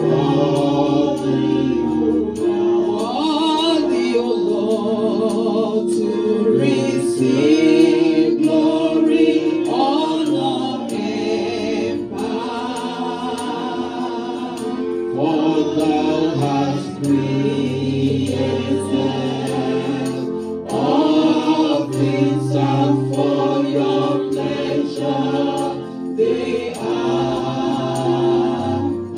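Gospel worship song: a woman sings lead with vibrato through a microphone and PA, over held instrumental chords and a bass line, with other voices singing along.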